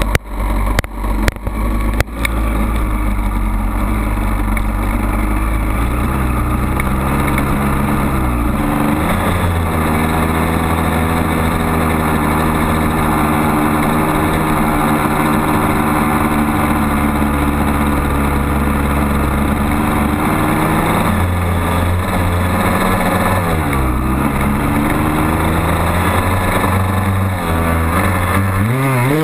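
Honda CR250R dirt bike's two-stroke single-cylinder engine under way, heard from on the bike: the pitch holds steady for long stretches, drops and climbs again about a third of the way in and again past two-thirds, and wavers near the end. A few sharp knocks near the start.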